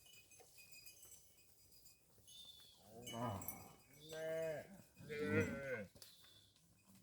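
Cattle mooing: three calls in quick succession starting about three seconds in, the last the loudest.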